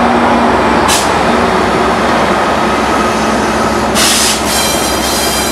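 Trinity Railway Express diesel-hauled commuter train passing close by, its locomotive engine running with a steady tone over the rumble of wheels on rail. Short bursts of high hiss come about a second in and again, longer, at around four seconds.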